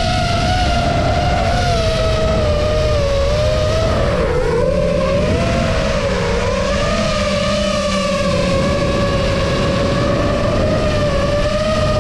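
Brushless motors and propellers of a 6S FPV quadcopter whining steadily in flight, the pitch sagging as the throttle eases about four seconds in and then holding lower. Heard from the onboard action camera, with a low wind rumble underneath.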